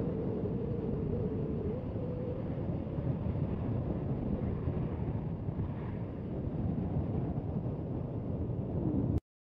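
Jet aircraft engines rumbling steadily with wind buffeting the microphone, a faint engine whine in the first couple of seconds. The sound cuts off abruptly near the end.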